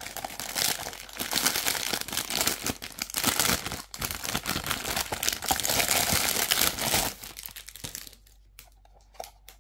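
Clear plastic wrapping crinkling and rustling as it is pulled off a silicone suction bowl. It stops about seven seconds in, leaving a few faint clicks.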